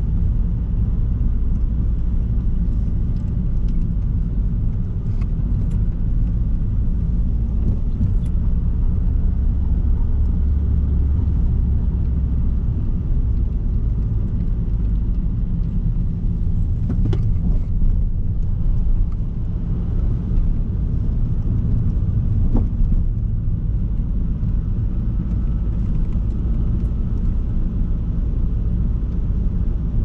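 A car driving, heard from inside the cabin: a steady low rumble of engine and tyres on the road. A couple of faint clicks come through, one just past halfway and another a few seconds later.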